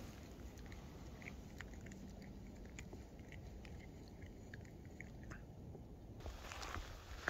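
Maine Coon cat licking and nibbling its paw pads, faint small wet clicks of its mouth. Near the end, rustling steps start up in the thin snow.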